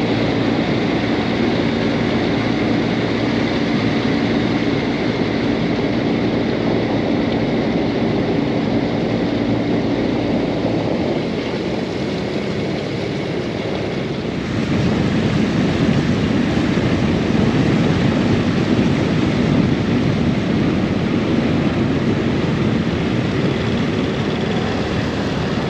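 Outboard motor of a fishing boat running steadily under way, with wind and water noise. The motor dips a little in level about eleven seconds in and comes back louder about three seconds later.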